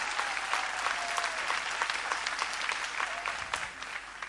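Concert audience applauding, many hands clapping at once; the applause thins out near the end.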